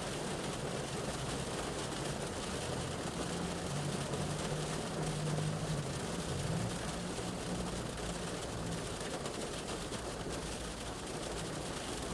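Rain shower falling on a car's roof and windows, heard from inside the car as a steady hiss. A low engine hum of a passing vehicle swells and fades in the middle.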